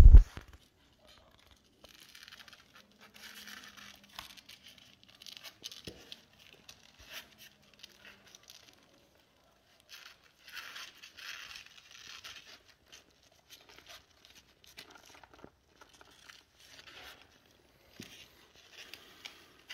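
Soft, intermittent scratching and rustling on cardboard, in short scrabbling spells with small clicks between them, as a kitten's claws scrabble on the box while it climbs in and clambers over its mother.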